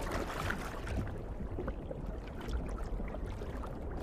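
Underwater water ambience: a steady low rumble of moving water with scattered faint crackles and gurgles.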